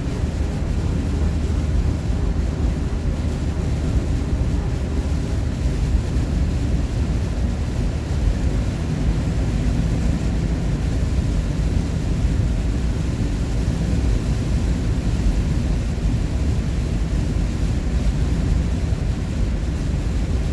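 Steady engine and road noise inside a moving vehicle's cab, a low rumble with no sudden events.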